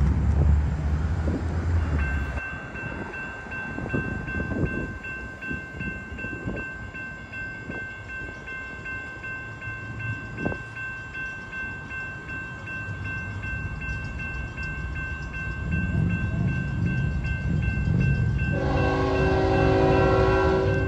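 Railroad grade-crossing warning bell ringing steadily from about two seconds in as the crossing activates, while the low rumble of an approaching CSX diesel locomotive grows. Near the end the locomotive's air horn sounds a long chord.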